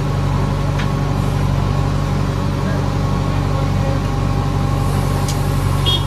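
JCB 3DX backhoe loader's diesel engine running steadily, heard from inside the operator's cab while the backhoe digs. Two light clicks come about a second in and again near the end.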